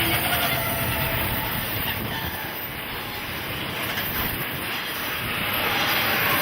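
A freight train hauled by EF64 electric locomotives running along the track, giving a steady rolling noise of wheels on rail.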